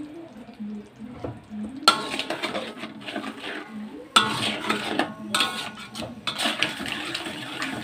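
A metal spatula clattering and scraping against a metal wok while stirring a soy-sauce mixture. The strokes start about two seconds in and come in uneven bursts, with brief ringing from the wok.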